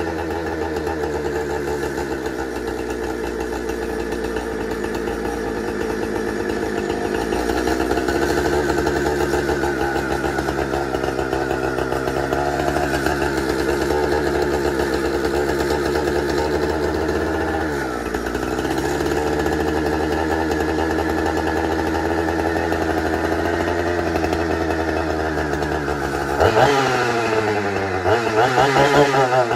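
Husqvarna 455 Rancher chainsaw's two-stroke engine running steadily while its carburetor is being tuned. It sags briefly about halfway through, then is revved up and drops back twice near the end.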